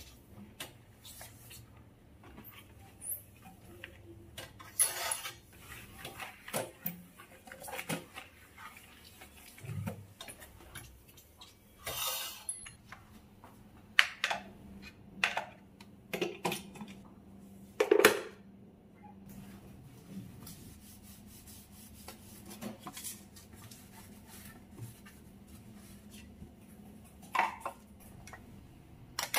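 Kitchen cleaning: scattered knocks and clatters of objects being handled and set down on a stone countertop, with short rubbing sounds of wiping between them.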